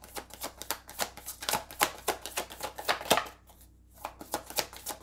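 Tarot deck being shuffled by hand: a quick, irregular run of card slaps and flicks, with a brief lull about three and a half seconds in.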